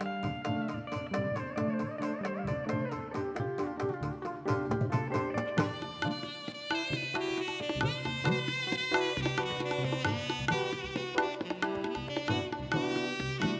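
Live raga-based ensemble music: quick, regular percussion strokes under held melodic lines whose pitch bends and wavers, with the melody growing busier and higher from about six seconds in.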